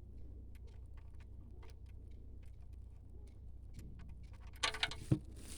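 Used engine oil draining from a VW Polo Vivo's sump into a catch container: faint, irregular ticking drips over a low steady hum. A brief rustle and a single knock come near the end.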